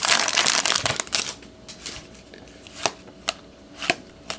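A baseball card pack's wrapper rustling for about the first second. Then cards are flicked through by hand, with a sharp snap every half second or so as each card is pulled off the stack.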